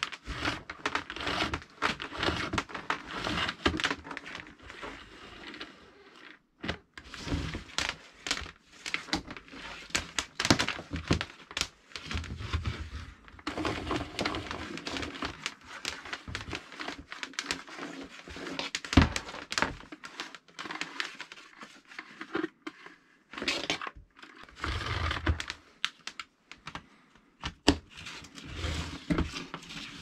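Handling noise from a homemade retractable cord reel built from a vacuum cleaner's cable reel in a PVC pipe drum: the rubber power cord is pulled out and fed back in, rustling and sliding, with irregular clicks and knocks of the plug and drum on a wooden bench. One sharper knock comes about two-thirds of the way through.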